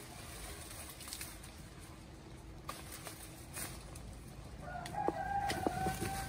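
A rooster crowing once: one long, held call starting about three-quarters of the way in, the loudest sound here. A few light clicks and snaps come before and under it.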